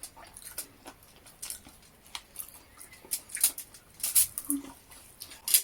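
Close-up eating sounds: chewing crisp fried chicken, a scattered series of crunches and mouth clicks, the loudest one near the end.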